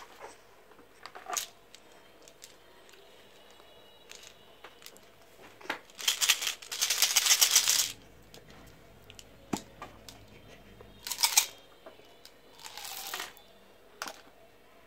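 Small sugar-coated candies rattling in a plastic toy candy tube and spilling out into a hand, amid clicks and crinkles of plastic packaging being handled. The loudest rattle comes about six seconds in and lasts almost two seconds, with two shorter ones later.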